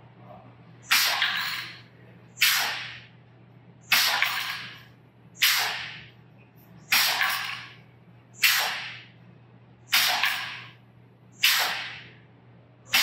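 Pneumatic air cylinders of a poker chip dispenser cycling its escapements in auto mode: a sharp burst of exhausting air about every one and a half seconds, each hiss dying away quickly, as the machine feeds out five chips per tube.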